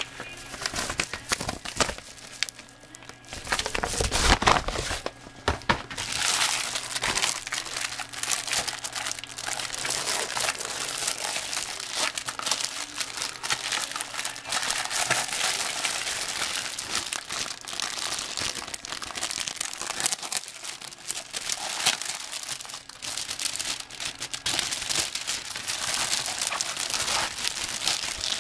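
Clear plastic packaging crinkling and rustling as hands handle and unwrap a painting canvas, with a louder stretch of crumpling about four seconds in.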